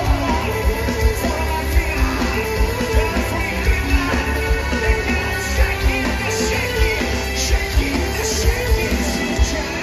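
A rock band playing live through a large PA, with a singer's voice over a steady drum beat of about two hits a second, heard from far back in the crowd.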